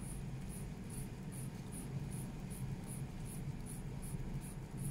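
Orient Star Modern Skeleton's F6F44 automatic movement being wound by hand at the crown: an even run of small, faint clicks, about two or three a second.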